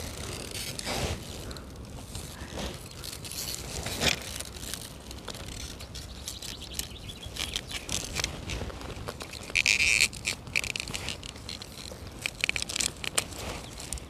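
Crisp snaps and rustles of a small knife cutting through young sea kale stalks, with leaves brushing, over a low rumble of wind on the microphone.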